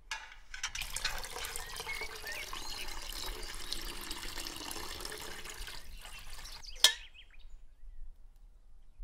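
Tea poured in a stream from a steel mug into a metal vessel, running for about five seconds, then a single sharp clink near the end.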